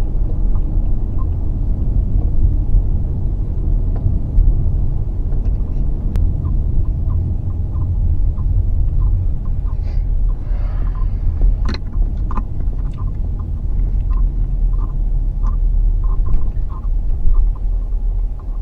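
A car in motion, with a steady, loud low rumble of road and engine noise heard inside the cabin. A few light ticks come in the second half.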